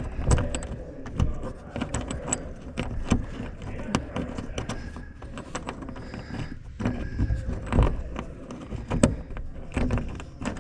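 Irregular metal clicks and clinks of hand wrenches on nuts and bolts as the hardware holding a cab screen is worked loose.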